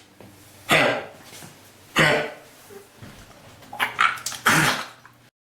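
A dog giving about four short, harsh coughs roughly a second apart. It is the hacking cough that the owner takes for kennel cough (Bordetella bronchoseptica).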